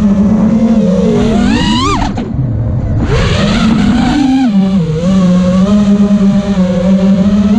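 Brushless motors of a 5-inch FPV quadcopter whining, the pitch shifting up and down with throttle. About two seconds in the whine climbs steeply and cuts off sharply, a rushing noise follows, and then the steady whine returns.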